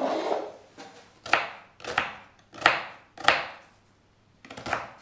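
Kitchen knife cutting through a peeled onion onto a plastic cutting board: about five sharp chopping strokes, roughly two-thirds of a second apart, after a longer noise at the very start.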